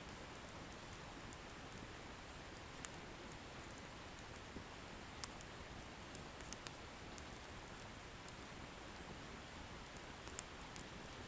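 Wood fire burning with a soft steady hiss and a few sharp crackles and pops of the burning firewood, the loudest about five seconds in and another near the end.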